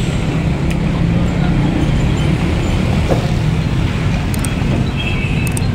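Steady low rumble of road traffic, with a few faint sharp clicks.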